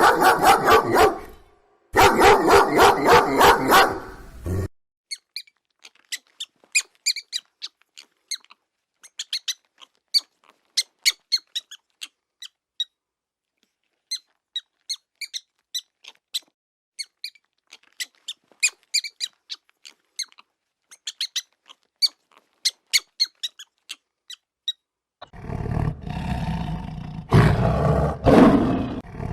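A dog barking in quick repeated barks for the first four seconds or so, then a long run of faint, short, high squeaks or chirps, then a lion roaring from about 25 seconds in.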